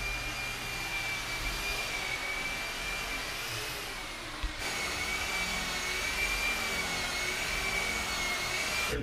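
Small electric motor running with a steady, slightly wavering high-pitched whine over a rushing noise, cut off and picked up again about halfway.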